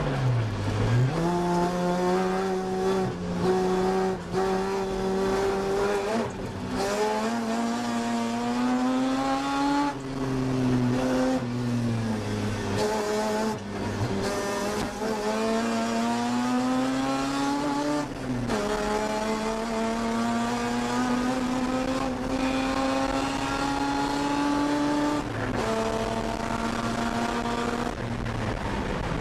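A 1982 Mazda RX-7's rotary engine, heard from inside the cabin, running hard on track. Its pitch climbs through the gears and drops suddenly at several upshifts, then falls away near the end.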